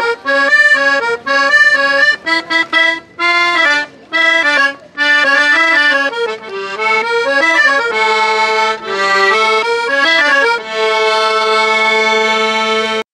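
Accordion played solo: a quick, lively melody of short notes over chords, which settles into a long held chord and cuts off abruptly near the end.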